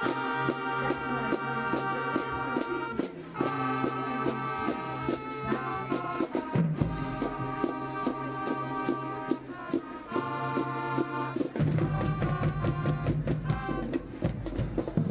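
High school marching band playing: brass chords over a steady drum beat. The bass gets much heavier about halfway through and again near the end.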